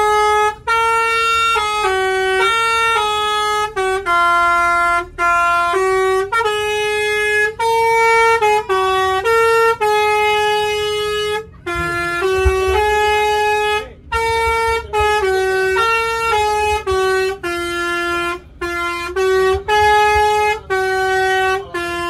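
Bus 'telolet basuri' musical air horn playing a melody: a run of short and held notes with brief breaks between them.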